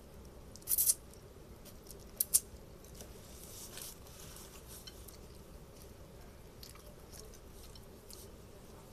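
A person eating fried noodles: chewing with a few short, sharp mouth noises, the loudest about a second in and two more just after two seconds.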